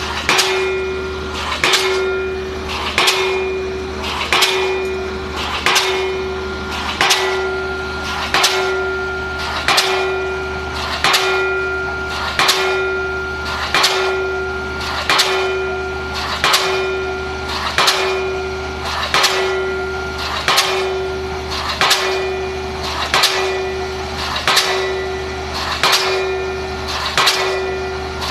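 APE D19 diesel pile hammer driving a pile, its blows landing at a steady rhythm about every second and a half. Each blow is a sharp clang followed by a brief metallic ring.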